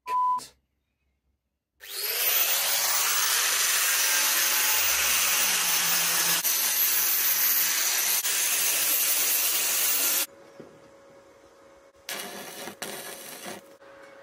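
Handheld angle grinder starting up with a rising whine and grinding steel for about eight seconds, then switched off suddenly. A few short, irregular bursts of noise follow near the end.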